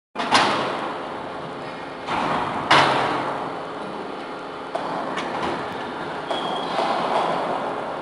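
Enerpat double-ram hydraulic metal baler running, with a steady mechanical noise. Two loud metal clangs come early and near the middle, and lighter knocks follow around five seconds in.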